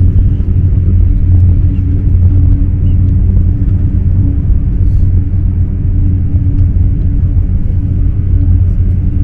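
Eurostar high-speed train running at speed: a loud, steady low rumble with a constant hum underneath.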